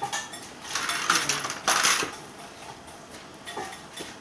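Plastic toy train cars and track clattering and clicking as they are handled and set onto the track, with a dense run of clatter from just under a second in to about two seconds in, then a few scattered clicks.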